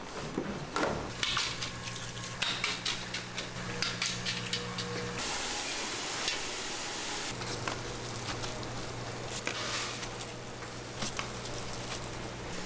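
Tteokbokki sizzling on a flat iron griddle, with sharp clicks and scrapes of metal utensils. A louder hiss comes about halfway through and lasts about two seconds, over a steady low hum.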